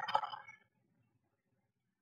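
Blue tit shuffling in the moss and hair lining of a wooden nest box, wings fluttering: a scratchy rustle and clicking that dies away about half a second in.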